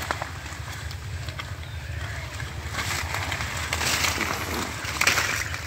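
Water hyacinth leaves rustling and wet mud and water being stirred as hands grope for catfish, growing louder from about three seconds in as a catfish is pulled out. A steady low hum runs underneath.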